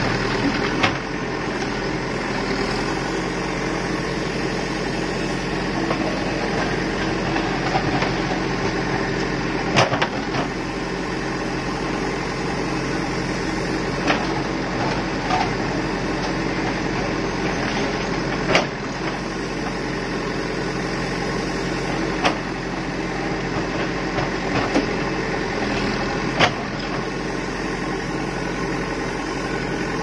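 Diesel engine of a Terex backhoe loader running steadily under load as the backhoe digs, with a sharp knock every few seconds as the bucket strikes and scrapes through stony rubble.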